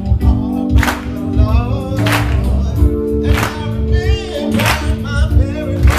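Men's choir singing a gospel song in held, sustained chords over a steady beat, with a sharp hit about every second and a quarter.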